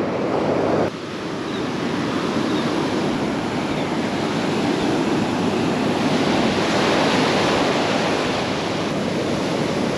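Gulf surf breaking and washing up the beach, with wind on the microphone: a steady rushing noise.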